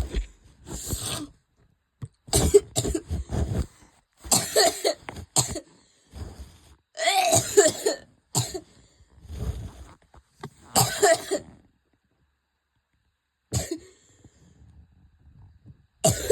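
A person in a coughing fit: clusters of coughs, one bout after another every second or two, with short gaps between them. Near the three-quarter mark there is a short lull with only faint breathing-level sound, then the coughing starts again near the end.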